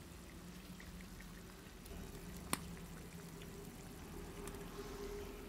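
Cauliflower curry bubbling as it simmers in a metal wok, a soft steady bubbling with small pops, and one sharp click about two and a half seconds in.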